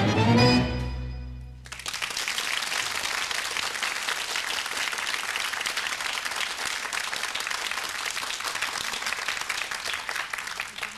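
A tango ensemble of bandoneons and strings ends its piece on a final held chord with a low bass note that dies away, then an audience applauds steadily for about nine seconds, tapering off at the end.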